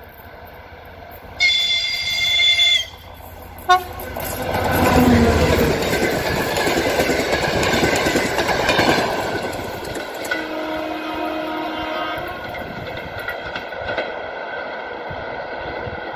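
TEP70BS diesel locomotive sounding a high horn blast for about a second and a half, then a short toot, before it and its passenger cars pass close at speed in a loud rush of wheel and rail noise that slowly eases off.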